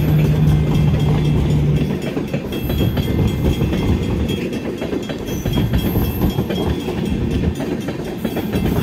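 Freight train tank cars rolling past close by: a steady rumble of steel wheels on rail with a rapid clatter of clicks and knocks. A low steady hum stops about two seconds in.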